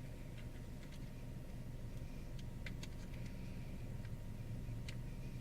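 Faint, scattered clicks and light handling noises of a camcorder being turned over in the hands, over a steady low hum.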